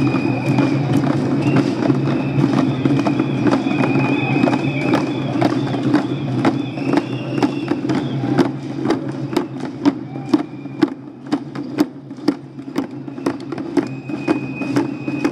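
Many hand-held drums beaten by a group of marchers, a loose ongoing beat of sharp hits that thins out in the second half. A high sustained tone comes and goes above the drumming.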